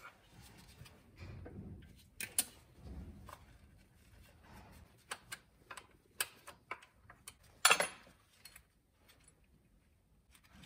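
Scattered metal clicks and taps of hand tools and fittings on a diesel engine's injector area as the fuel return (leak-off) line is being undone before the injectors come out. A few dull bumps early on, and a louder short scraping rattle a little before the end.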